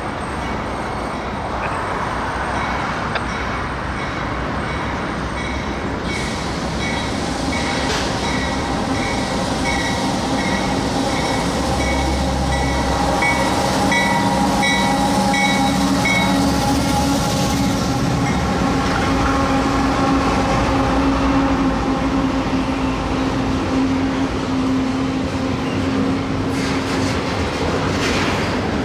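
Norfolk Southern freight train rolling past: diesel locomotives running and cars rumbling on the rails, with several steady tones over the rumble. It grows louder through the middle of the passage.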